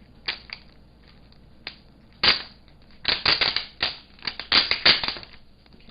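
Sticky tape being peeled off the back of a laptop LCD panel: a series of short tearing rips, one sharp pull about two seconds in, then a denser run of rips from about three to five seconds.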